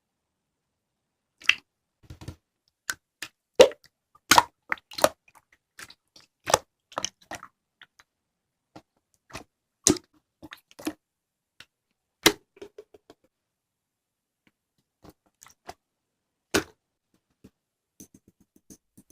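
Slime being squeezed and poked, giving irregular sharp clicks and pops with short silent gaps between them, busiest in the first half and sparser near the end.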